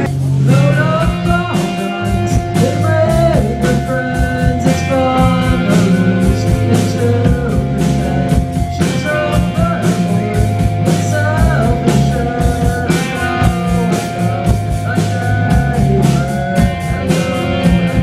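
A rock band playing live: drum kit keeping a steady beat under electric guitar and bass, with a young singer's voice over the top.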